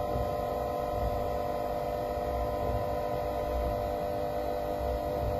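Steady electrical hum of a screen frame separator machine with its vacuum pump running, a constant mix of several held tones over a low rumble.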